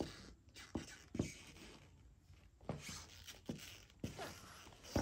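Sneakers with gum rubber soles stepping and shuffling on a tiled floor: several soft, short footfalls at irregular intervals, with faint scuffing between them.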